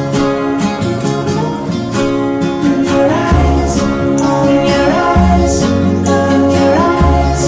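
Indie rock song in an instrumental passage, led by strummed acoustic guitar. About three seconds in, a deep bass comes in under the guitar, and a high melody line slides up between notes.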